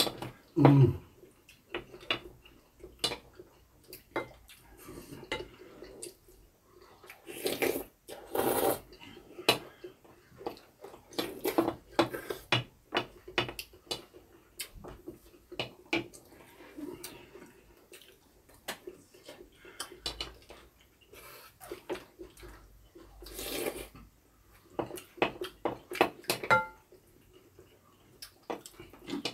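Spoons and chopsticks clicking and scraping against ceramic bowls while eating, with several loud slurps of glass noodles and hot pot broth.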